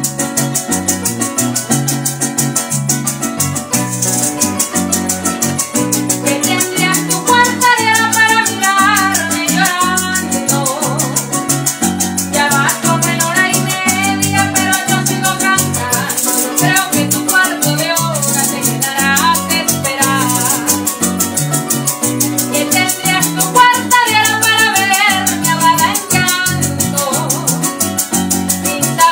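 Llanero-style ensemble playing live: concert harp, cuatro and electric bass with shaken maracas keeping a fast steady rhythm. A woman sings in phrases from about seven seconds in.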